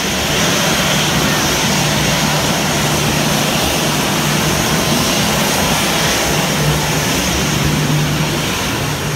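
Aircraft engines on the airport apron running with a steady roar and a constant low hum underneath.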